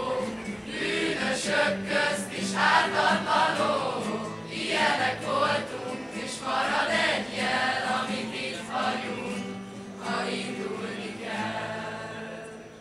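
A large group of young mixed voices singing together, accompanied by several strummed acoustic guitars. The singing dies away near the end.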